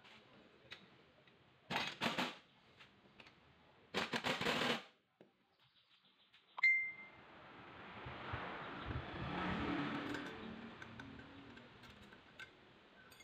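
Metal tools and strut parts being handled: two short bursts of rapid metallic rattling about two and four seconds in, a sharp metal clink near the middle, then softer scraping and handling noise.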